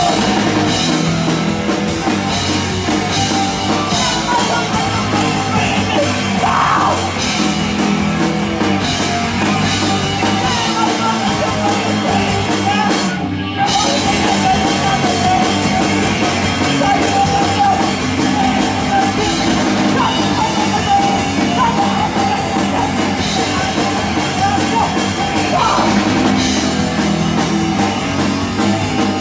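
Live punk rock band playing loud: electric guitar, bass and a drum kit through amplifiers, with a singer's vocals over them. The music stops for a split second about halfway through, then crashes back in.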